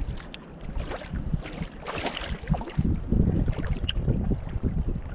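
Wind buffeting the microphone in an uneven low rumble, with scattered rustles and light knocks of handling.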